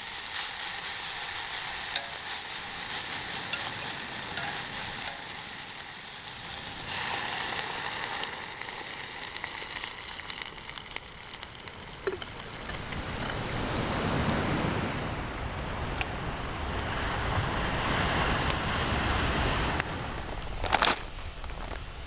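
Food sizzling and frying over a campfire, a fine hiss with scattered crackles, for roughly the first half. Then a low rushing sound of wind and surf rises, with one sharp click near the end.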